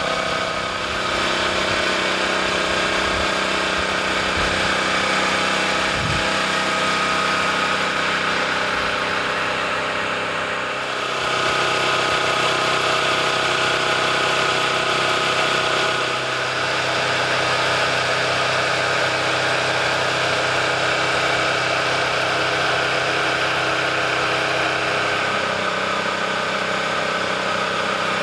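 A large engine running steadily, a deep hum under a high whine; the mix of tones changes abruptly a few times.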